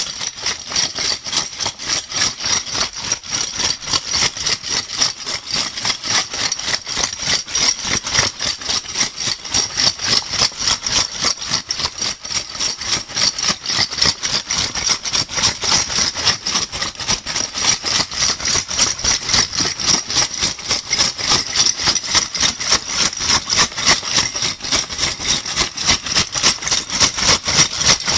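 Metal bottle caps rattling and clinking against each other as a bag of them is shaken over and over in a fast, even rhythm.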